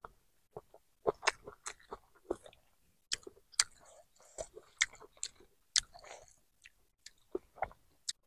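A person chewing a mouthful of rice and chicken curry close to a clip-on microphone, with many sharp, irregular wet mouth smacks and clicks.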